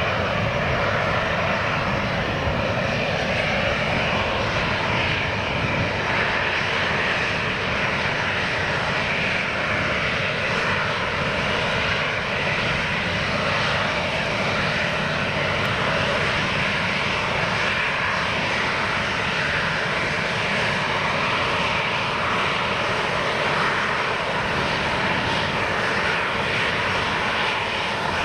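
Boeing 737 jet airliner's engines running steadily at taxi power as it rolls past close by: an even, unbroken engine noise with no rise or fall.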